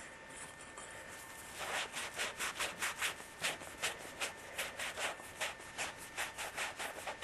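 Emery cloth rubbed briskly back and forth around the end of a 3/4-inch copper pipe, a quick run of scraping strokes about three a second that starts a couple of seconds in: the pipe end being cleaned to bright metal before fluxing and soldering.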